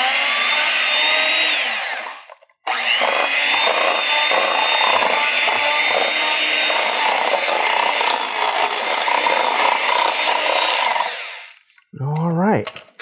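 Handheld electric mixer running, its beaters creaming soft butter and sugar in a glass bowl. It runs about two seconds, stops briefly, then runs again steadily for about nine seconds before winding down.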